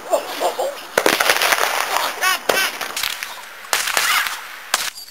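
A Roman candle firing: four sharp pops spread over a few seconds, with young voices yelling and shrieking in between.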